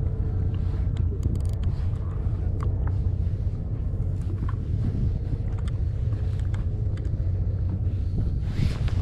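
Fishing boat's engine running with a steady low rumble, with a few faint clicks and a short hiss near the end.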